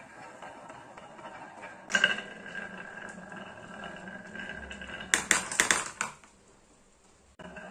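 Marbles rolling down a carved wooden zigzag slope with a steady rolling rattle and a sharp knock about two seconds in. A little after five seconds comes a quick clatter of clicks as they drop into a plastic toy dump truck bed, and then it goes quiet.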